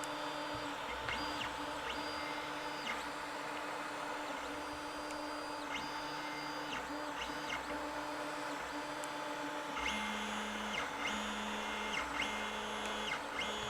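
Creality Ender 5 3D printer running: its stepper motors whine in short pitched strokes as the print head moves, over a steady hum. About ten seconds in the strokes get louder and settle into a regular back-and-forth pattern, roughly one stroke a second.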